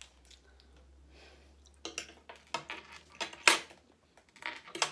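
Spoons and forks clinking and scraping against ceramic plates and bowls during a meal: a scattering of short, sharp clicks that starts a couple of seconds in, with one louder knock about halfway through.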